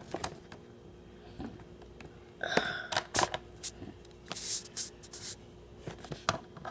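Clicks, knocks and rustles of a toy's cardboard-and-plastic packaging being handled while the toy is worked free of its rope ties, with a short squeak about two and a half seconds in and a brief hiss about two seconds later.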